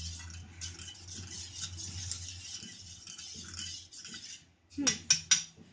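A hot pot of kadha steaming on the stove, a steady crackly hiss with a low hum beneath, which stops about four and a half seconds in. A few sharp metal clinks of a utensil follow near the end.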